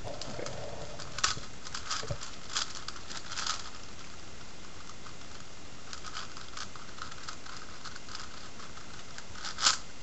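Hand-turned 5x5x5 Rubik's cube (Professor's Cube): its plastic layers click and clack in two quick runs of turns, with a pause between them and one louder clack near the end, as its edges are paired up.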